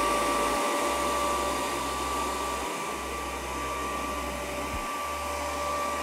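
Proscenic 790T robot vacuum running on carpet: a steady whir with a steady high whine. It gets a little quieter as the robot moves away across the floor.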